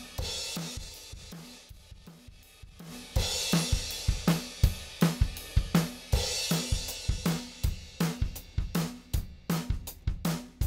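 Drum kit playing a steady groove of kick, snare and hi-hat, with crash cymbals about three and six and a half seconds in, after a brief quieter stretch near the start. A demonstration drum recording run through the elysia xpressor 500 compressor.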